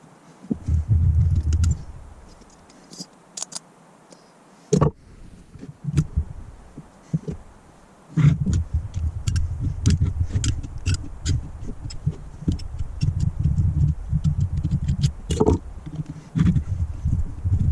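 Clicks, taps and scraping of hand tools and metal carburettor parts during bench disassembly of a Holley four-barrel carburettor, over a low rumbling handling noise that comes in bursts and runs on steadily through the second half.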